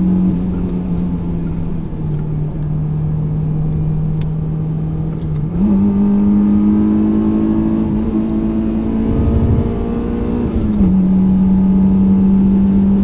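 Honda S2000's four-cylinder engine running under steady throttle on the road, its note holding an even pitch that drops about two seconds in, jumps up and gets louder about halfway through, and eases down again near the end. The engine is freshly built and still being broken in.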